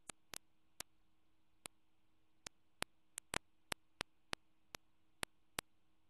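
Sharp, isolated clicks at irregular intervals, about fifteen of them, some in quick pairs, over near silence with a faint steady hum.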